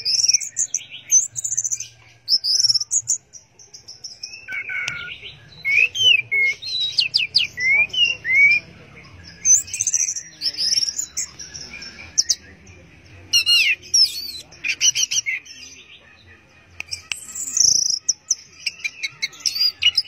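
Orange-headed thrush singing a varied song of quick high whistles, slurred sweeps and chirps. The song comes in phrases of a few seconds, with short pauses in between.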